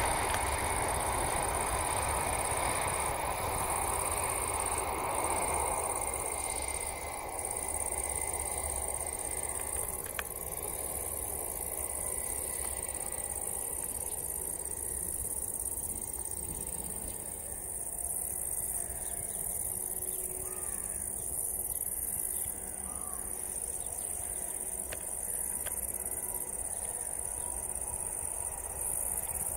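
The IAE V2500 jet engines of a landing Airbus A319-132 rush loudly as it rolls out on the runway, fading over the first several seconds to a low rumble as the airliner slows and taxis. High-pitched insects chirr steadily throughout.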